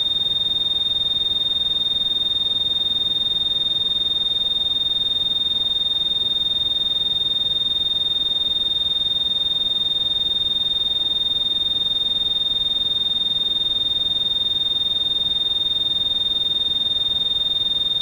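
Synthesized tinnitus-therapy tone: a single steady, high-pitched beep held without change, over a faint hiss.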